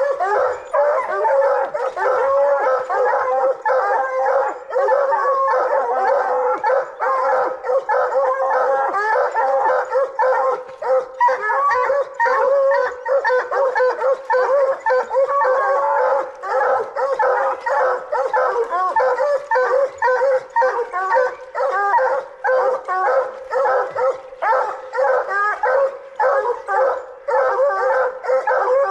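Two coonhounds barking treed at the base of a tree: a steady run of quick, overlapping barks, several a second and without a break, the sign that the hounds have quarry up the tree.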